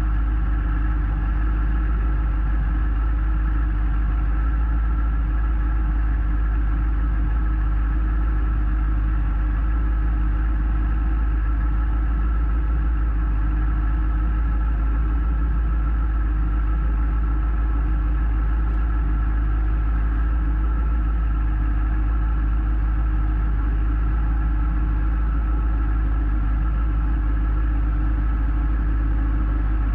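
Kawasaki ZX-6R's inline-four engine idling steadily, with no revving, heard through a camera mounted on the bike.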